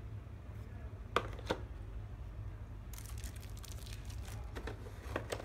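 Two light plastic clicks as a trimmer attachment is handled over its plastic tray, then plastic packaging crinkling and rustling from about three seconds in.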